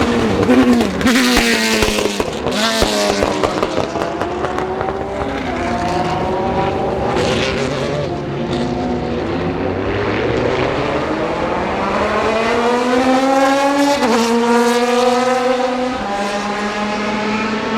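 Ferrari F430 GT2 race car's flat-plane V8 at full revs, climbing steadily in pitch with a sharp drop from an upshift about fourteen seconds in. Sharp crackles and pops from the exhaust are heard around one to three seconds in and again near the middle.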